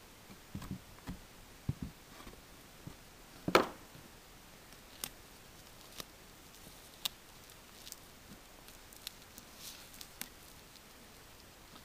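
Light handling of a paper funnel and aluminium foil on a wooden floor: a few soft taps, one louder sharp knock about three and a half seconds in, then faint crinkles and ticks as the foil is folded and pinched shut by hand.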